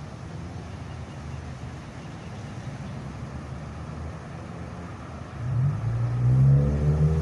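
Steady road traffic rumble. About five seconds in, a louder motor drone starts close by and rises in pitch, like a heavy vehicle pulling away.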